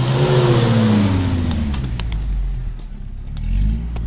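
Opel Frontera A Sport's engine revving as the 4x4 crawls through mud and passes close by: the pitch rises in the first moment, then falls away, and rises again briefly near the end. A hiss of tyres churning mud rides on top early on, with a few sharp clicks.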